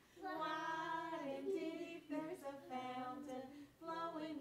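A woman singing a children's song unaccompanied, with young children singing along, in short phrases of held notes.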